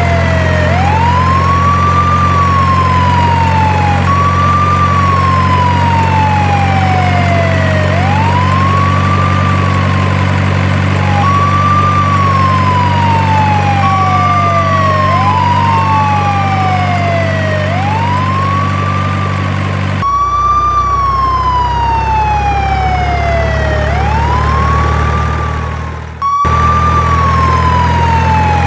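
Electronic siren wailing over and over, each cycle a quick rise then a slow fall in pitch, about every three seconds. Under it runs a steady low engine drone. Near the end the sound drops away for an instant and then comes back.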